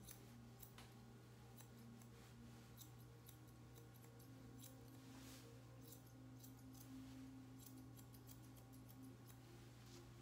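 Grooming scissors snipping through a poodle puppy's coat: faint, irregular snips, a few a second, over a steady low hum.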